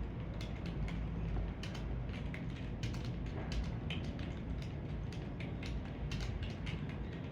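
Computer keyboard being typed on at speed: a quick, uneven run of key clicks, several strokes a second, during a typing test.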